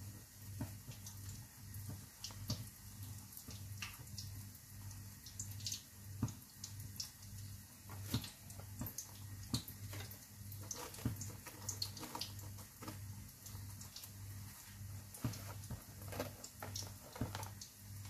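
Hot cooking oil crackling in a frying pan: scattered, irregular sharp pops and spits. Under it runs a low hum that pulses about twice a second.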